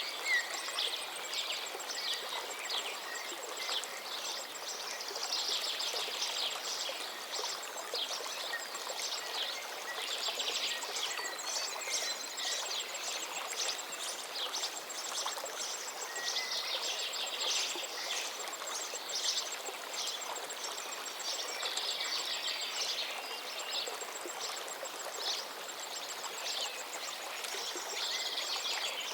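River water flowing steadily, with birds chirping and singing over it in clusters every few seconds.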